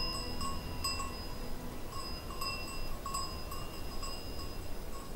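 Small bells worn by a herd of livestock clinking irregularly, a few rings a second, each with a clear ringing tone, as the animals move.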